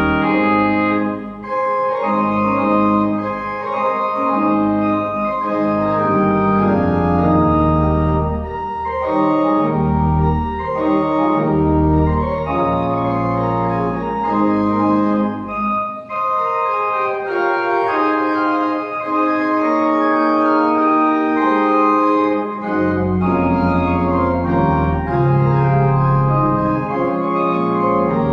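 Pipe organ playing full sustained chords over low pedal notes, the chords changing about every second.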